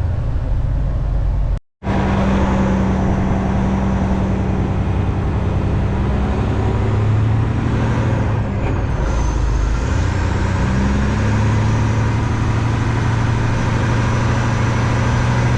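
Western Star semi truck's diesel engine running under load, pulling a heavy load of stone out on a dirt track. Its note drops about eight seconds in and climbs back up a couple of seconds later. The sound cuts out briefly near the start.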